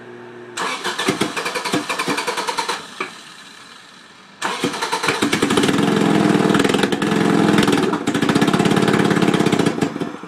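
Honda CRX Si engine being cranked on its starter for its first start, in two tries: a short burst of about two seconds, then a longer, louder spell of about five and a half seconds that stops abruptly.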